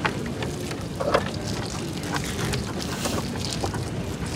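Small boat's motor running steadily, with a few sharp knocks and clatters, the loudest right at the start and about a second in.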